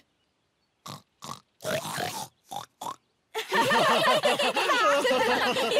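Cartoon voices imitating pigs: a few short oinks and snorts, then from about three and a half seconds in several voices break out together, laughing.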